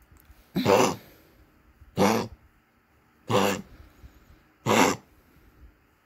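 Small dog coughing four times in an even rhythm, about a second and a half apart, each cough short. The dog is on enalapril and Lasix, heart-failure medicines, so this is the cough of a dog under treatment for heart disease.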